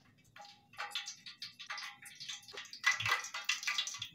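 Cooking oil heating in an aluminium pot for deep-frying, crackling and popping irregularly. The oil is not yet hot enough to fry.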